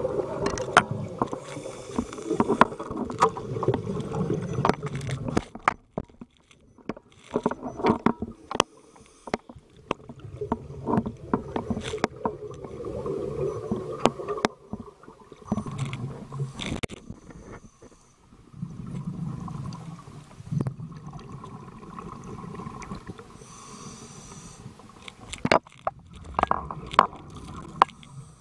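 Muffled underwater noise picked up through an action camera's waterproof housing: stretches of low rumbling, gurgling water sound broken by many sharp clicks and knocks against the housing.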